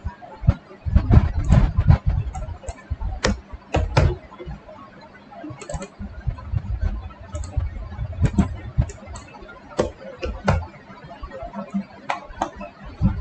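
Irregular clicking of a computer mouse and keyboard at a desk, with a few dull low thumps mixed in, loudest about a second in.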